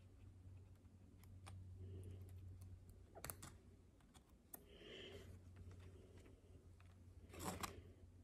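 Faint, scattered clicks of metal surgical instruments, a needle holder and forceps, handled while tying suture, with the loudest cluster of clicks near the end. A steady low hum runs underneath.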